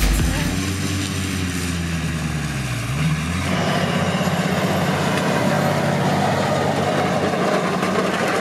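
Valtra T234 tractor working with a Krone loader wagon: the engine's pitch sags, climbs back about three seconds in, then runs steady and a little louder.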